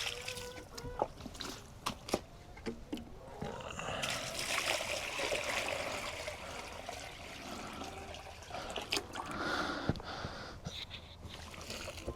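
Water pouring and splashing into a container, starting about four seconds in and running steadily, after a few light clicks and knocks.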